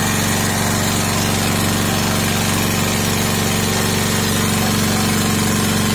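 Sakura Storm D9000E portable generator's engine running steadily under a load of about 33 amps from a load bank.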